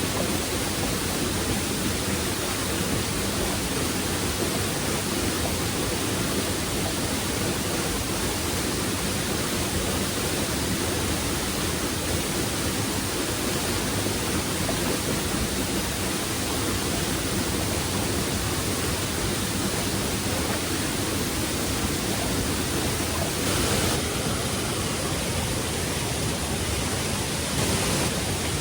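Steady rush of a waterfall, an even wash of falling water that swells briefly louder twice near the end.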